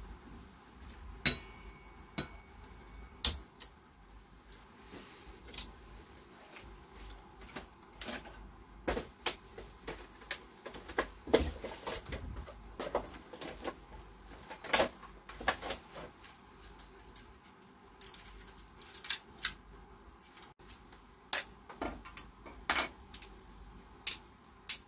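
Irregular clicks, clinks and knocks of small aluminium and copper heatsinks and clear acrylic parts being handled and set down on a wooden workbench, with a short metallic ring about a second in.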